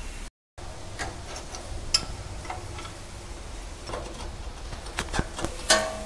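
Irregular light metal clicks and clinks as a rusted lower control arm pivot bolt is worked loose and drawn out by hand, with a louder ringing clink shortly before the end.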